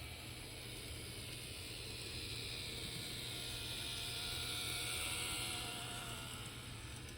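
Micro Ace N-gauge model of a Gakunan Railway 5000 series two-car electric running along the track, its power unit freshly stripped and serviced. A steady mechanical whir grows louder to a peak about five seconds in, then fades as the model moves past.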